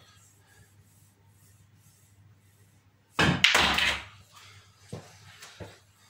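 Pool shot on a 6 ft table: about three seconds in, a loud, quick cluster of clacks and knocks as the cue strikes the cue ball and the balls collide and hit the cushions, followed by a couple of light ball clicks.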